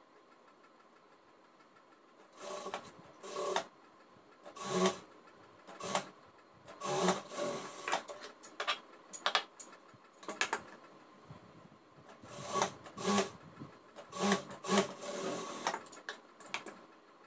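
Jack industrial lockstitch sewing machine stitching in short, irregular bursts, starting about two seconds in, as fabric is fed through and handled between runs.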